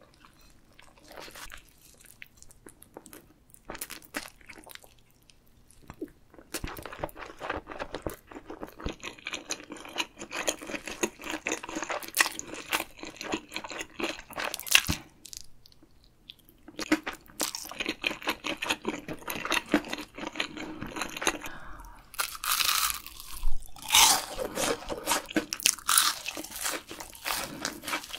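Close-miked ASMR eating sounds: crunching bites and chewing of a crisp seaweed-wrapped roll with stretchy cheese inside. Faint for the first several seconds, then steady crunching that grows loudest near the end.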